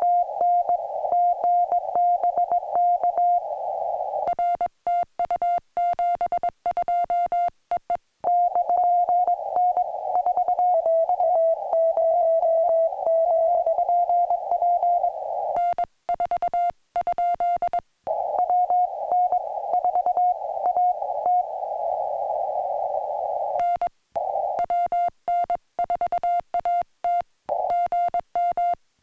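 Morse code (CW) on a ham radio: a steady mid-pitched tone keyed on and off in rapid dots and dashes. Clean, sharply keyed stretches of the operator's own sending sidetone alternate with the other station's code, heard in a band of hiss from the receiver, in one stretch at a slightly lower pitch.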